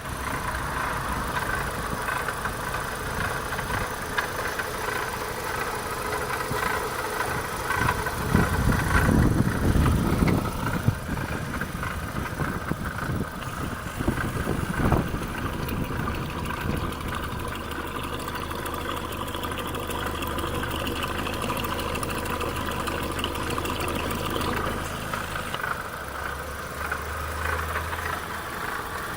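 Opel Astra's 1.6 16V (X16XEL) four-cylinder petrol engine running with a rattling noise. A louder low rumble swells for a few seconds about eight seconds in, and a steady low hum sets in after about seventeen seconds.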